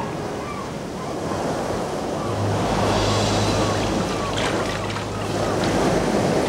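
Rough sea: waves surging and rushing, growing louder about two seconds in, with a low steady rumble underneath for a few seconds.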